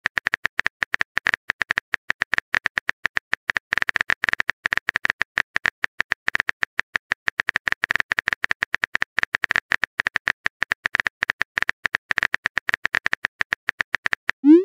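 Keyboard typing sound effect of a texting-story chat app: rapid sharp clicks, one per letter, as a message is typed out. Just before the end a short rising swoosh marks the message being sent.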